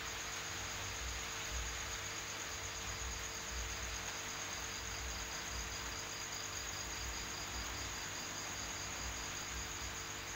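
Insects trilling: a fast, even, high-pitched pulsing that stops near the end, over a steady low hum and hiss.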